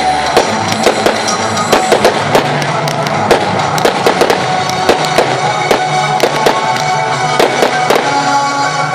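Fireworks going off in quick succession, many sharp bangs and crackles several times a second, with music playing throughout.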